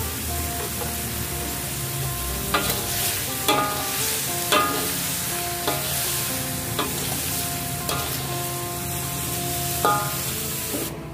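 Prawns and pineapple sizzling in a hot metal wok while a metal spatula stirs and scrapes them, with about half a dozen sharper clanks that leave the wok ringing briefly.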